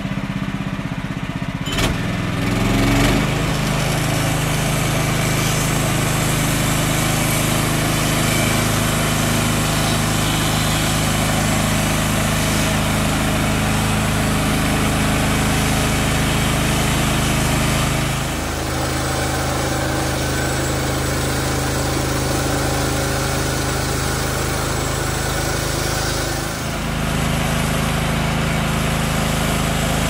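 Woodland Mills HM126 portable bandsaw mill running under power: its small gas engine runs at a steady high speed while the band blade cuts lengthwise through a used utility pole. The engine picks up speed about two seconds in, and its note shifts slightly twice later on.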